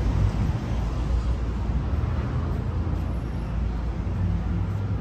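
Street traffic noise: a steady low rumble of passing cars.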